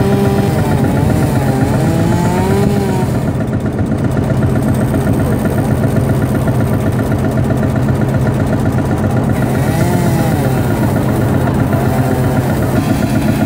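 Vintage tractor engine running steadily at a constant speed, belted to a saw bench to drive a circular saw.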